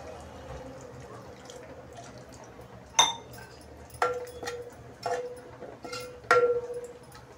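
Water poured into a metal cooking pot of fried masala paste, a faint steady splashing, then a steel spoon stirring the thinned gravy and knocking against the pot four times, about a second apart, each knock ringing briefly.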